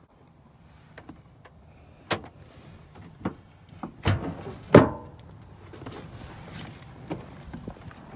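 Clicks and knocks of a pickup truck's door being worked, with a cluster of heavy knocks about four seconds in and the loudest, a single solid thunk, just under five seconds in, like the door shutting.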